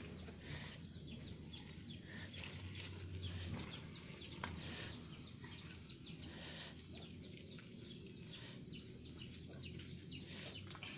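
Chickens clucking faintly, with a rapid run of short, high calls throughout, over a steady high hum.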